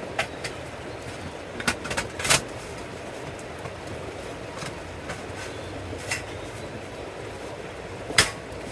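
Scattered sharp metal clinks and knocks from the stainless fire pit and its hook-type pot stand being handled and set in place, a cluster about two seconds in and one loud clink near the end, over a steady low hiss.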